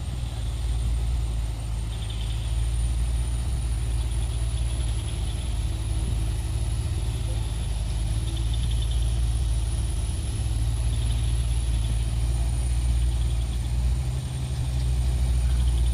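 Heavy diesel truck engine running steadily at low revs, a continuous low rumble with a thin high whine over it.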